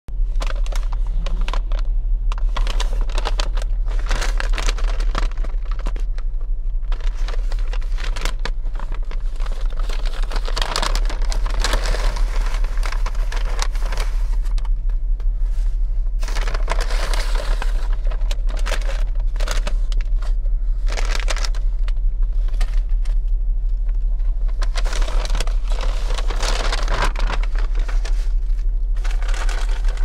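Foil burger wrapper crinkling and rustling in repeated bursts as it is handled and unwrapped close to a lapel mic, over a steady low hum.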